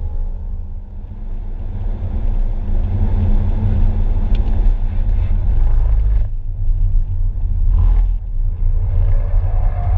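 Inside the cabin of a BMW G20 3 Series driven at speed on a race track: engine and road noise with a heavy low rumble. It builds over the first few seconds and dips briefly about six seconds in and again near eight seconds.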